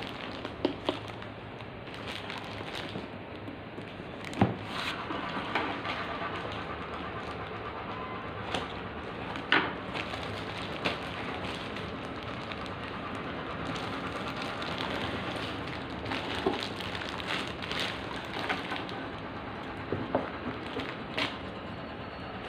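Clear plastic packaging crinkling and rustling as it is handled, with cardboard box flaps being moved. Sharp little clicks and knocks come and go throughout.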